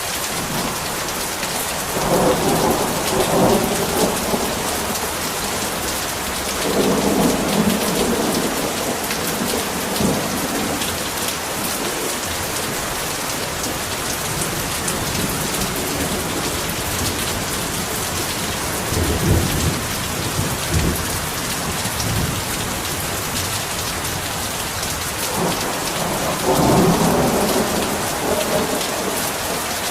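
Heavy rain falling steadily, with rolls of thunder swelling and fading four times.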